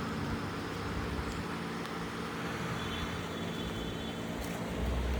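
A steady engine hum, as from a motor vehicle running nearby.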